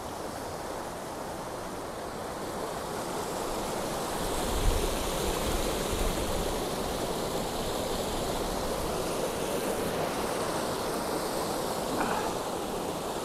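Small rocky stream rushing and splashing over boulders in a steady wash of water noise, which grows louder a few seconds in.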